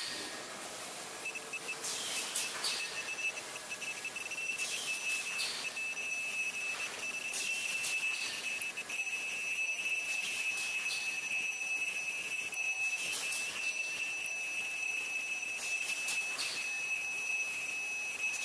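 Automatic rice bag making machine running: a steady high-pitched whine, with pairs of short hisses or clacks from its working stroke repeating about every three seconds.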